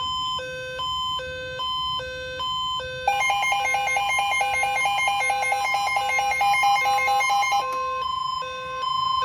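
Emergency alert receivers sounding their alarm tones together for an incoming weather alert, a tornado watch. An alternating two-pitch beep runs throughout. About three seconds in, a fast pulsing beep and a steady tone join it, and the pulsing beep stops about three seconds before the end.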